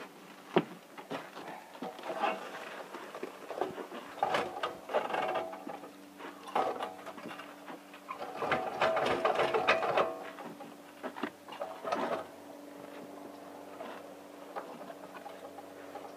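Portable cement mixer on its wheeled stand, loaded with wet concrete, rattling and clanking as it is pushed over a plank walkway, loudest just past the middle. Under it runs a steady hum of the mixer's motor and turning drum, which goes on alone for the last few seconds once the rattling stops.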